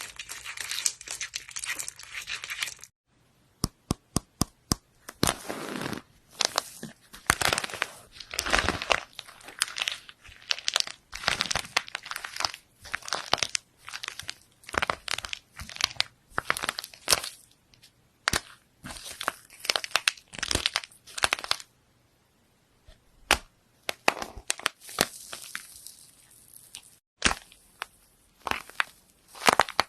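Slime being squeezed and pressed by hand, giving fast crackling, popping and crunching sounds. It comes in several short clips that cut off abruptly, with brief silences between them.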